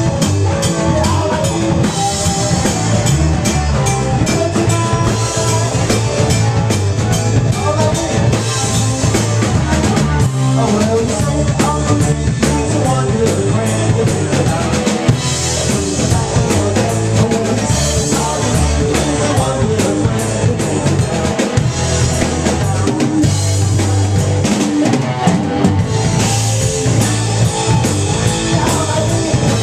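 Live rock band playing loudly: electric guitars over a full drum kit.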